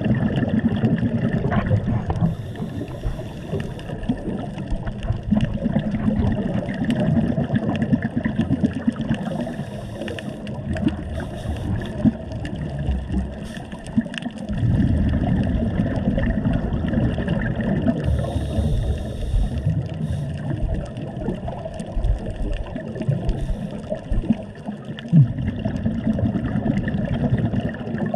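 Underwater sound of a scuba diver breathing through a regulator, recorded on the camera: gurgling, bubbling exhalations over a steady rumble, with a high hiss four times, several seconds apart.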